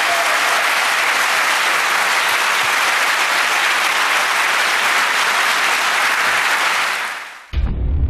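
Audience applauding steadily. The applause fades out about seven seconds in, and music with a deep low end starts right at the end.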